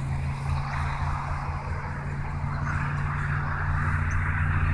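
A motor vehicle's engine hums steadily, with road and tyre noise growing louder over the last few seconds.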